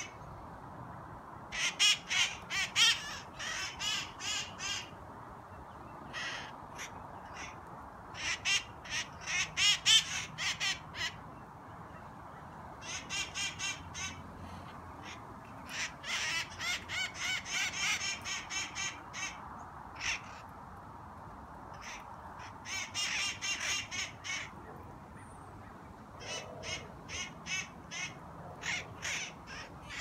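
Parrots calling loudly from a tree: rapid runs of squawks, several bursts of a few seconds each with short lulls between.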